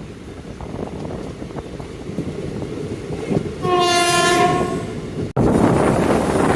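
Passenger train running with steady rail noise, and the locomotive horn sounding one held blast of about a second and a half a little past the middle. Near the end the sound cuts abruptly to a louder rush of wind and running noise.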